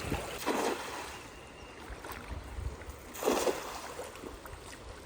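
Two short water splashes about three seconds apart, over a steady background hiss of water.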